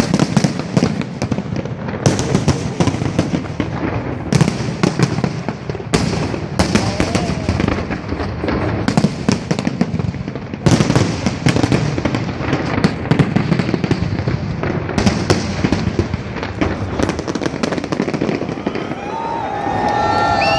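Fireworks display: a dense, continuous crackle of small bangs, with louder clusters of bursts about every two seconds.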